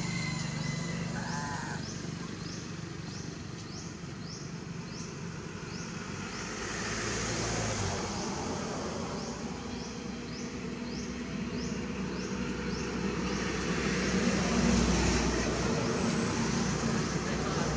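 Outdoor ambience: a high, rising chirp repeats about twice a second, over a low engine rumble from a motor vehicle that grows louder in the last few seconds.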